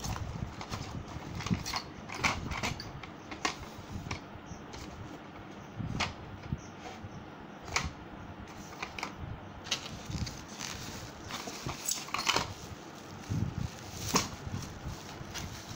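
Handling noise from unpacking a power drill kit: plastic wrapping crinkling and parts clicking and knocking against a polystyrene tray and cardboard box, in irregular bursts with no rhythm.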